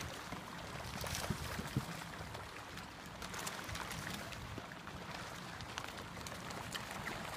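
Small waves lapping and splashing against the side of a boat, over steady wind noise, with scattered faint ticks and clicks.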